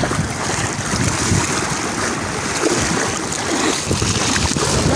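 Sea waves washing and splashing against shoreline rocks, with wind buffeting the microphone in an uneven low rumble.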